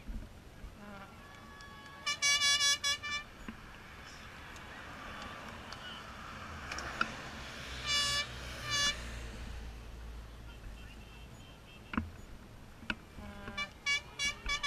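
Vehicle horns tooting in quick series of short blasts: a run of about five a couple of seconds in, two toots in the middle, and another run near the end. Under them, the low rumble of a motorbike engine swells as it approaches up the road.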